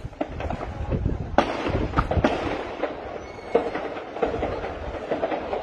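Gunfire during an armed attack on a building: sharp cracks at irregular intervals, a cluster of shots about a second and a half to two seconds in and more scattered shots later, over a steady background rumble.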